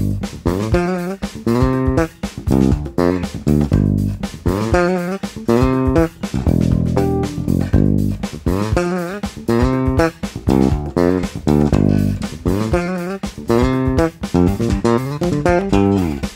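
Electric bass guitar played fingerstyle in a busy run of quick notes with a few slides, with no backing. The tone is set with the bass cut by 20%, the mids boosted by 20% and the treble flat, a leaner practice sound that lets each note's attack come through.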